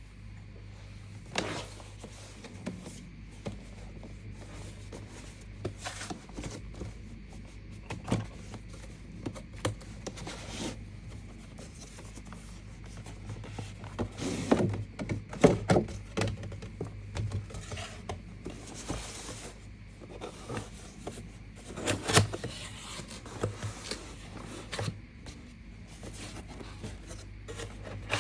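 Cardboard box and packaging being handled during an unboxing: rubbing and scraping with scattered knocks and clicks, busiest around the middle of the stretch, over a steady low hum.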